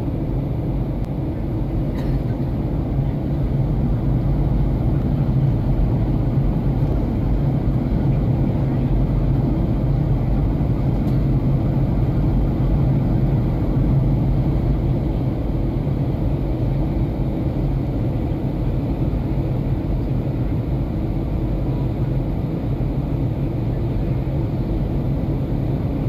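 Aircraft cabin noise in flight: a steady low drone of engines and rushing air, heard from inside the cabin.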